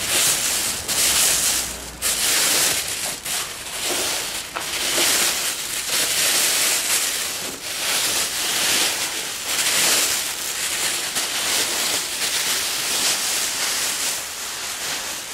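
Plastic wrapping crinkling and rustling as it is pulled off an engine block, in a run of uneven swells, each lasting a second or so.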